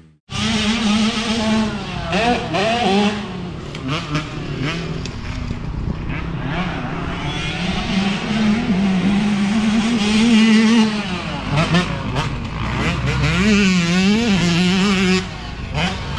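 Dirt bike engine revving up and down repeatedly as the bike is ridden around a motocross track, the pitch rising and falling with each throttle opening and shift; it gets quieter about fifteen seconds in.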